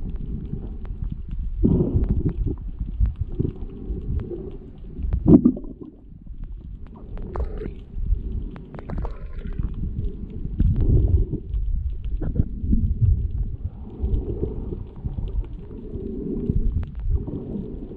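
Muffled low rumbling and gurgling of seawater heard underwater, swelling and fading irregularly, with scattered faint clicks.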